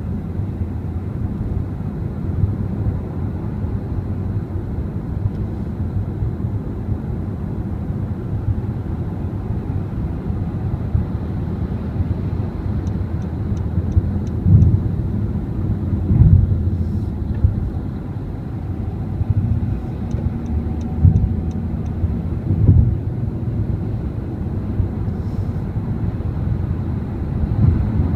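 Road noise inside a car cruising on a freeway: a steady low rumble of tyres and engine, broken by a few short low thumps in the second half. Two brief runs of faint quick ticks come about halfway through and again a little later.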